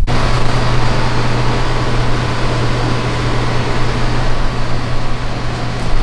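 Small Vevor air compressor running steadily: a constant motor hum under an even mechanical noise.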